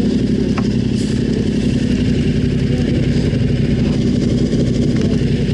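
Yamaha Ténéré 700 motorcycle's parallel-twin engine running loud at a steady speed, its pitch holding level.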